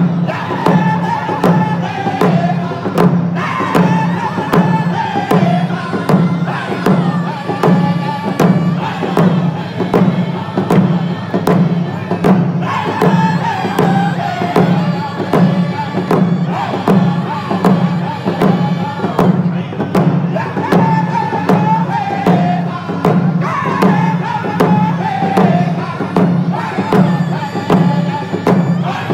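Cree round dance song: a group of men singing together over handheld frame drums beaten in a steady beat, about two strokes a second. Each sung phrase starts high and falls.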